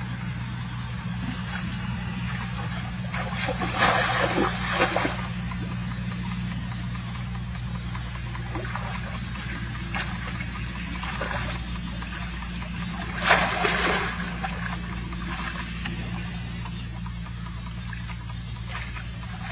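Shallow water splashing and sloshing as a woven basket fish trap is pushed down into it, with two louder splashes, about four seconds in and about thirteen seconds in, over a steady low hum.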